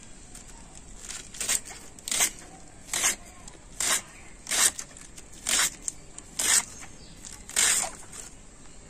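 A knife slicing through a hand-held wedge of cabbage, cutting it into thin shreds: crisp, rasping strokes a little under a second apart, about eight in all.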